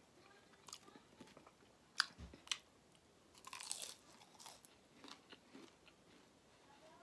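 A person biting into and chewing breaded fried fish and crinkle-cut French fries. Sharp crunches come around two seconds in, a longer crunch about three and a half seconds in, and softer chewing between and after.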